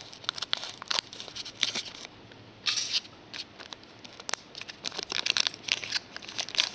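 Foil trading-card pack wrapper crinkling and crackling as it is opened by hand, with one longer rip a little under three seconds in.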